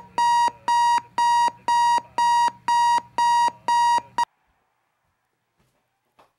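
Digital alarm clock going off: a high, steady beep repeated about twice a second, each beep cut short. It stops abruptly a little over four seconds in.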